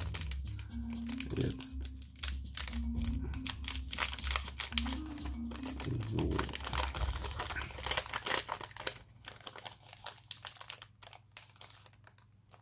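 Foil trading-card booster packs crinkling as they are handled and torn open, with rapid irregular crackles that thin out to sparse rustles over the last few seconds. A faint tune of a few held notes stepping up and down runs underneath for the first half.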